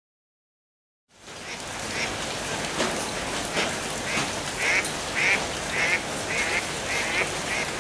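Rain falling, fading in after a second of silence, with ducks quacking in a quick run of calls, about two a second, from about halfway.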